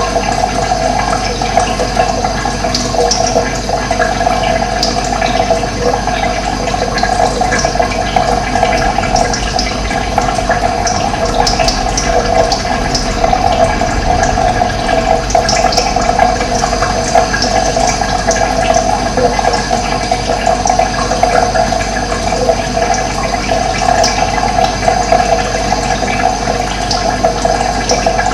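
Running water flowing steadily, with short, high bird chirps scattered over it.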